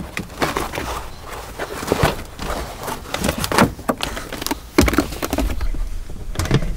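Rustling and scuffing of a cut piece of carpet being handled and pushed into place against wooden boards, with a heavier thump about five seconds in.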